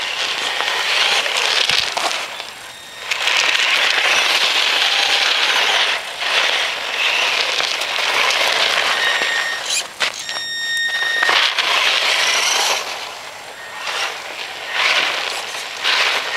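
Electric Traxxas Stampede RC truck driving on snow on thumbtack-studded tires: a crackling crunch of the tyres and drivetrain that swells and fades as it speeds up and slows. A short steady whine from the electric motor stands out a little past the middle.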